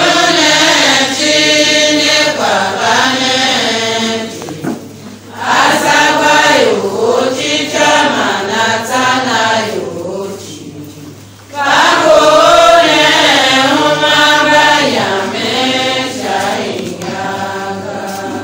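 A church congregation singing a hymn together for the entrance procession of Mass, in long phrases that break off briefly twice before starting again.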